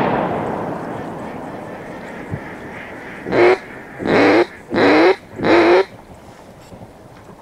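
Four loud, nasal duck quacks in quick succession, each about half a second long, after a rush of noise fades away over the first few seconds.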